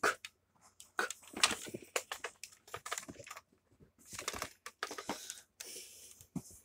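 Handling noise close to the microphone: irregular rustles, clicks and crinkles in short bursts, as objects and a toy are moved about.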